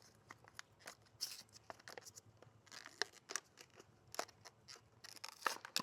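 Faint, scattered clicks and scratchy rustles of hands handling a replacement car light bulb and its fittings.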